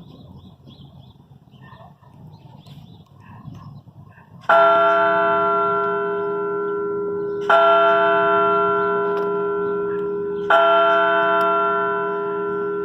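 A single church bell striking the noon hour: three strokes about three seconds apart, each ringing on and fading slowly into the next. The first stroke comes about four and a half seconds in.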